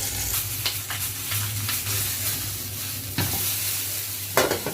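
Whole chicken browning in butter in a pan, sizzling steadily with scattered crackles and pops. Two louder knocks come in the second half.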